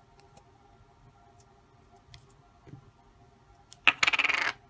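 Faint clicks of a plastic Play-Doh cutter being handled. Near the end comes a sharp clack, then about half a second of loud, rapid rattling clicks.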